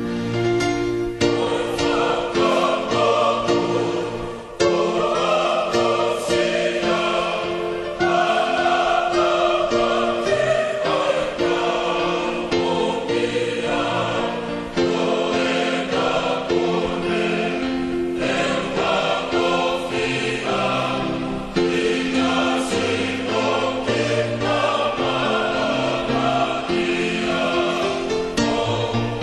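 Background music: a choir singing sustained chords.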